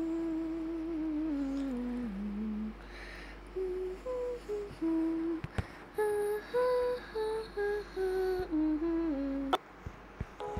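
A voice humming a slow, simple tune one note at a time. The pitch slides down over the first few seconds, then moves through a run of short separate notes, and stops near the end.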